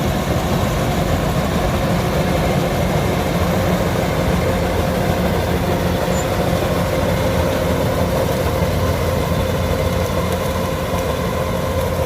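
Kubota DC-105X combine harvester's diesel engine running steadily as the machine harvests rice, a continuous heavy drone with a steady hum that does not change.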